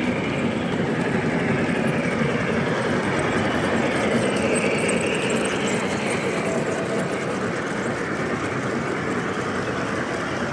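O gauge model trains running on the layout's track: a steady rumble of motors and wheels with no breaks or sharp knocks.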